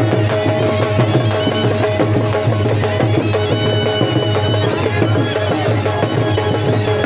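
Loud traditional folk music of fast, dense drumming, with held melodic tones over it.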